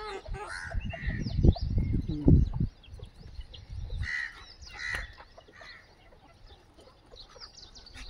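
Aseel chickens clucking and calling in short bursts, a few calls about four to five seconds in. Low rumbling thumps on the microphone are loudest in the first couple of seconds.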